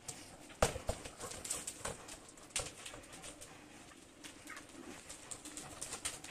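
Two dogs, a Doberman and a long-haired black-and-tan dog, play-fighting on concrete: scattered scuffs and sharp clicks of paws and claws, a few louder ones in the first three seconds.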